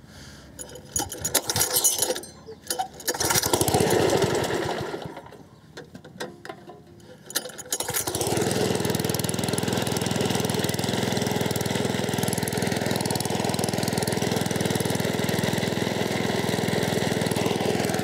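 Small single-cylinder four-stroke engine of a self-propelled cylinder lawnmower, still cold, on its first runs with a newly fitted carburettor whose idle has not yet been set. It runs unevenly for the first few seconds, swells and dies back, then about eight seconds in it catches and settles into steady running.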